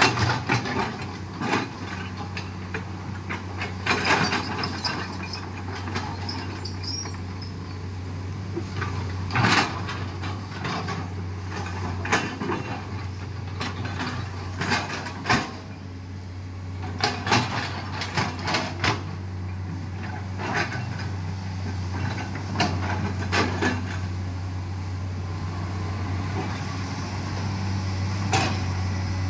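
Komatsu PC210LC hydraulic excavator's diesel engine running steadily, with irregular sharp clanks and scrapes from the steel bucket as it digs and moves soil.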